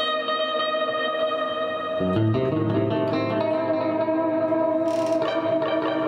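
PRS Silver Sky electric guitar played through a Line 6 HX Effects multi-effects unit on a factory preset: a chord rings out, and a new, lower chord is struck about two seconds in and left to sustain.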